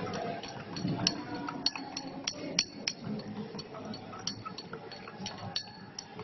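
Metal spoon stirring liquid in a small glass beaker, clinking irregularly against the glass about a dozen times.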